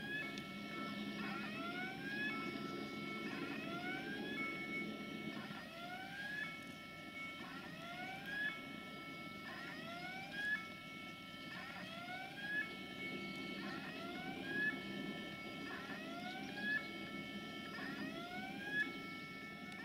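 Electronic warning siren sounding a rising whoop followed by a held tone, repeating steadily about every two seconds. A low rumble runs beneath it for the first five seconds or so.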